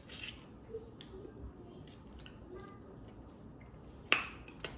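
Close-up eating sounds of a person eating sauce-soaked seafood boil shrimp: wet chewing, lip smacks and sucking sauce off the fingers, with scattered small clicks. There are two sharper smacks near the end.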